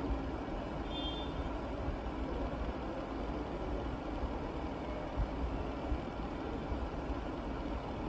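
Steady low background rumble, an even noise without any clear rhythm or distinct knocks.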